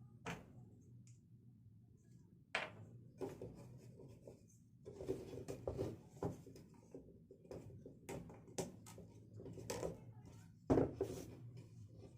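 Small wooden cage parts being handled and fitted by hand: scattered knocks, taps and light scraping, with a sharper knock about ten and a half seconds in.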